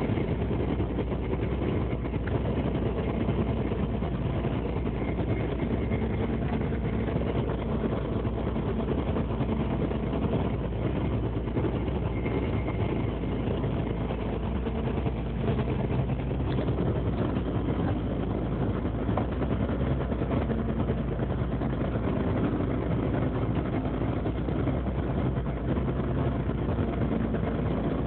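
Longline fishing boat's engine and deck machinery running steadily, an unbroken low hum that does not change.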